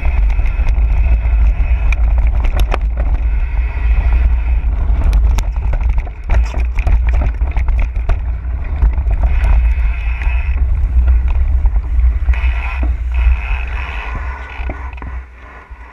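Mountain bike riding fast down a rocky gravel trail: wind rumbling on the microphone, loudest of all, with tyres crunching over gravel and the bike rattling and clacking over rocks. It quietens near the end.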